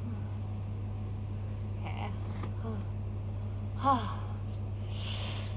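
Steady outdoor background of crickets chirring evenly over a constant low hum. A brief vocal sound falling in pitch comes near four seconds, and a short hiss about a second later.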